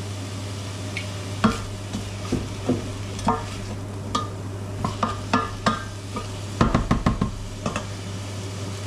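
A utensil stirring chopped vegetables in oil in a cooking pot, with irregular knocks and scrapes against the pot and a quick run of knocks about two-thirds of the way in, over a steady low hum.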